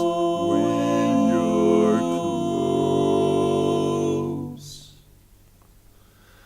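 Barbershop singers singing a cappella, holding a chord on the word 'close' that moves to a new chord about two seconds in and dies away after about four and a half seconds, then a short quiet pause in the song.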